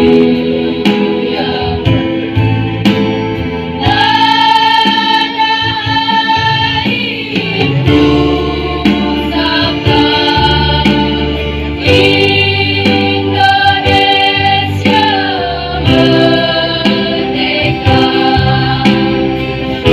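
A choir singing with instrumental accompaniment, holding long sung notes over a steady bass line and a light regular beat.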